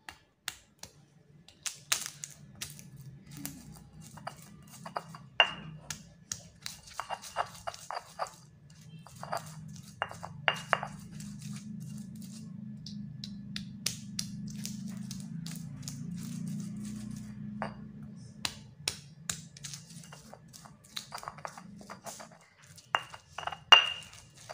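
Stone pestle pounding and grinding garlic, turmeric and candlenuts in a stone mortar (cobek and ulekan): sharp, irregular knocks and cracks of stone on stone and crushed spice, with a steadier grinding sound through the middle.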